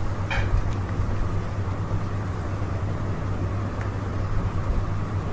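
Steady low hum over an unbroken background hiss, with a brief high-pitched chirp about a third of a second in.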